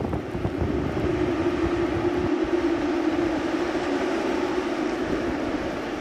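Storm wind blowing hard, with a steady low howl and gusts buffeting the microphone that ease off about two seconds in.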